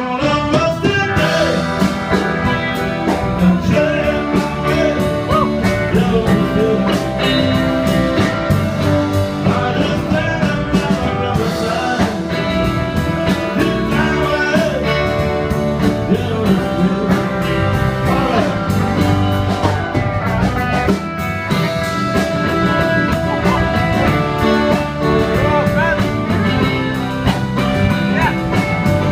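Live band playing a song, with electric guitar and drums.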